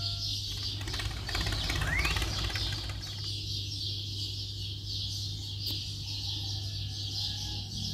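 Steady high-pitched outdoor chirping that pulses a few times a second, over a constant low hum. A rush of scraping, rustling noise fills the first three seconds.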